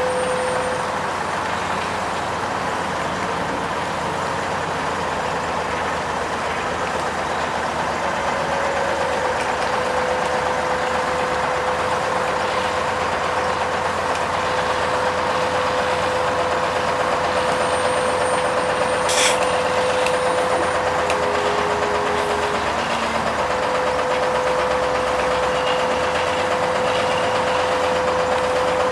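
Heavy diesel road-paving machinery running steadily, with a constant hum and a single sharp click about two-thirds of the way through.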